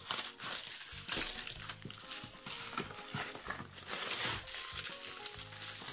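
Bubble wrap and plastic packaging crinkling and rustling in irregular bursts as items are handled and lifted out of a cardboard box.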